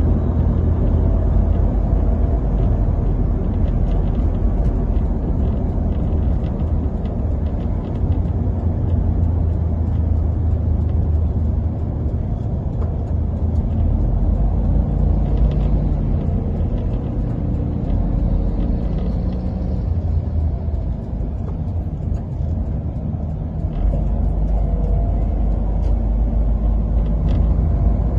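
Steady low rumble of a moving vehicle: engine, road and wind noise while riding in traffic.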